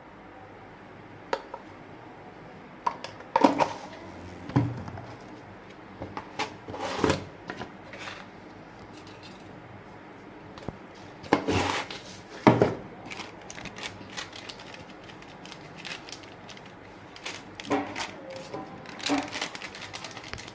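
Scattered clinks and knocks of a spoon and hands against a steel bowl as spice powder is spooned onto raw fish pieces, irregular and a few seconds apart, over a steady low hiss.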